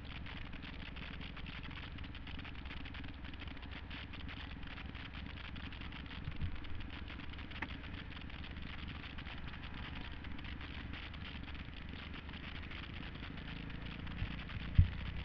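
Kawasaki KX250F dirt bike's single-cylinder four-stroke engine running as the bike rides a dirt trail, heard from a helmet-mounted camera with a steady rush of wind and rattles. A brief thump comes about six seconds in and a sharp knock near the end.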